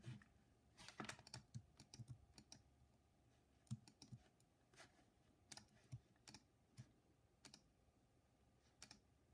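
Faint keystrokes on a computer keyboard: a quick run of taps in the first few seconds, then single taps about a second apart.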